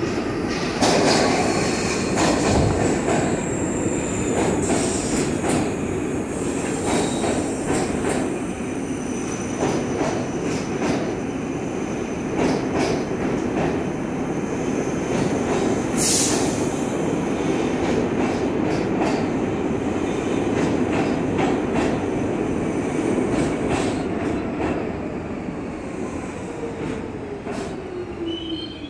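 R62 subway train pulling into the station: a steady rumble of wheels on rail with repeated clicks over the rail joints, and a brief sharp hiss about halfway. Near the end a tone falls in pitch as the train slows, and a brake squeal starts at the very end.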